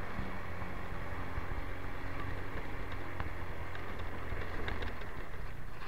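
Motorcycle under way at a steady pace: an even low engine hum under a constant rush of wind and road noise.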